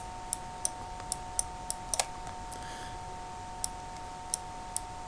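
A dozen or so light, irregular clicks of a stylus tapping onto a pen tablet while handwriting, over a steady faint two-tone electrical hum.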